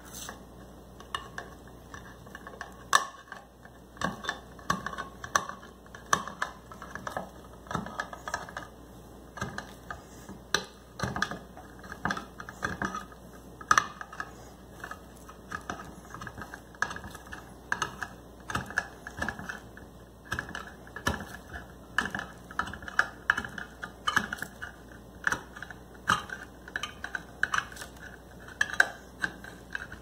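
A Victorinox Swiss Army knife's stainless-steel can-opener blade being levered around the rim of a steel can lid, cutting it open. It makes a long run of sharp, irregular metal clicks and snips, about one or two a second.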